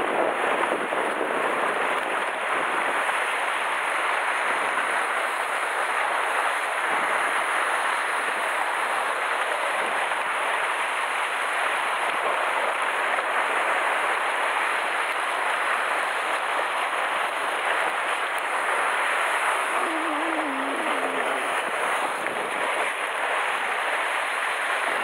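Rough sea surf surging and breaking against shore rocks, a steady rushing wash that never lets up.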